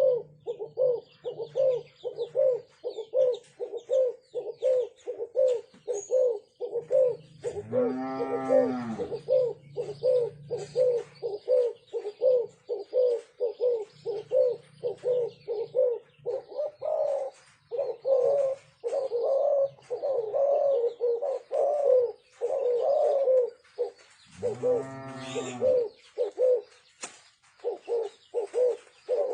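Spotted doves cooing: a quick, steady run of short low coos, with two louder, longer calls whose pitch rises and falls, one about a third of the way in and one near the end.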